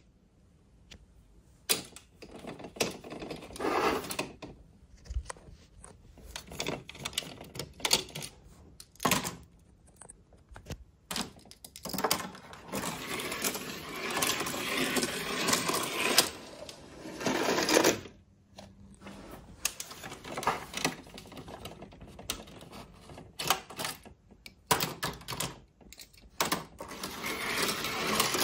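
Small diecast metal toy cars rolling and clattering along the plastic ramps of a toy garage tower, in irregular runs of rattling and clicks with short pauses.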